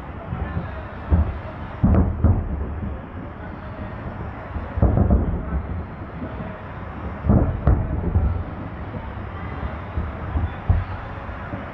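Aerial firework shells bursting: a series of sharp booms, the strongest about two, five and seven and a half seconds in, over a steady rumble from the ongoing display.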